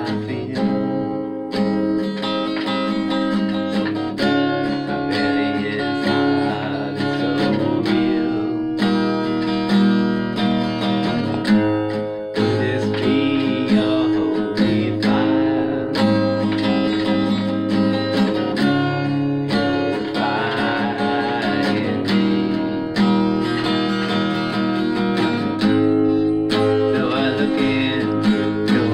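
Steel-string acoustic guitar strummed steadily, chords of a worship song ringing on with frequent strum strokes.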